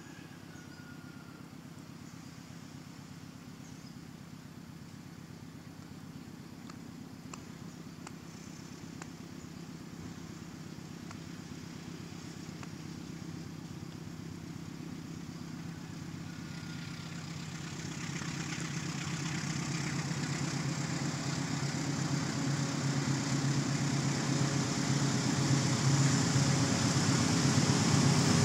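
Diesel locomotive hauling a cement freight train, its engine hum growing steadily louder as it approaches. A hiss joins in about two-thirds of the way through and swells with it.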